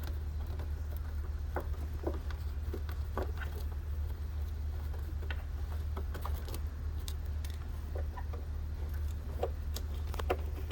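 Scattered light metallic clicks and clinks of small parts and hand tools being handled on an X-ray film processor's casing, at irregular times, over a steady low hum.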